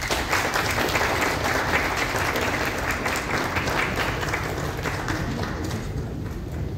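Audience applauding: many hands clapping in a dense patter that slowly thins out toward the end.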